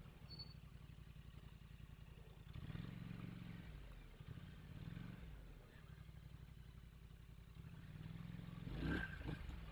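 A muskox sneezes about nine seconds in: one sharp, sudden blast of breath with a smaller one just after. Under it runs a steady low droning hum.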